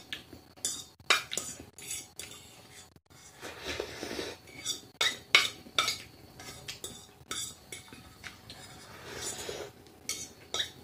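Metal cutlery clicking and scraping against a bowl of noodles in many quick, irregular strikes, with stretches of slurping from the bowl.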